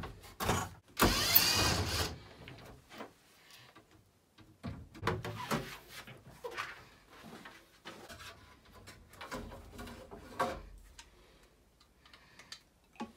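A small electric motor whirs for about a second, about a second in, as on a power tool. Scattered clicks and knocks follow as metal and plastic boiler parts are handled and pulled out.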